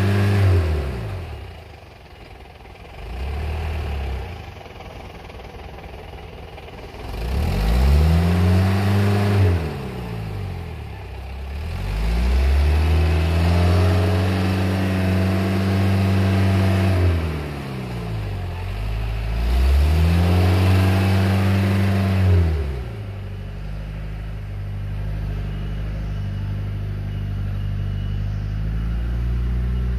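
Engine of a modified 1980s Toyota Land Cruiser hardtop revving up and falling back several times, holding high revs for a few seconds at a stretch, then settling to a steady lower speed for the last several seconds.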